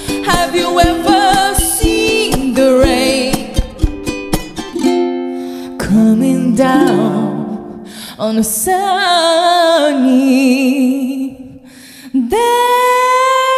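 Acoustic ukulele strumming with a woman singing the melody, her voice wavering in vibrato on held notes. The music drops away briefly near the end, then comes back in on a long held sung note over the chords.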